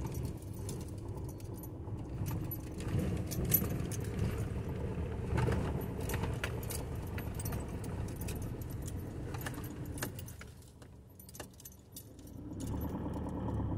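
Car cabin noise while driving on an uneven road: low rumble of the tyres and engine with frequent jingling and rattling of loose items inside the car. The rumble drops about ten seconds in as the car slows, then picks up again near the end.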